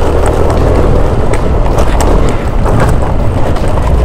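Yamaha Mio Aerox scooter riding over a rough dirt and gravel road: wind rushing over the camera microphone with the engine humming underneath, and scattered sharp clicks and rattles from the bumpy surface.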